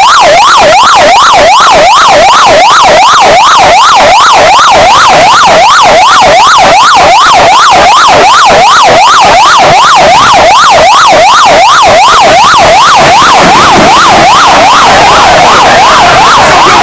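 Police electronic siren in fast yelp mode: its pitch sweeps rapidly up and down, about three times a second, loud and unbroken.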